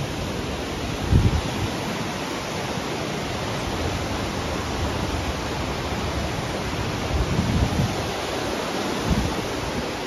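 Steady rushing of a white-water mountain stream, with a few short low bumps about a second in and again near the end.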